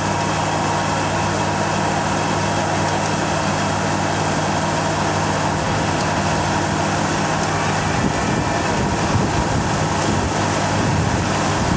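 ACE ACT 60 tracked combine harvester running steadily with its 62 hp engine, the threshing machinery and unloading auger going as it discharges grain: a constant engine hum over a wide machinery noise.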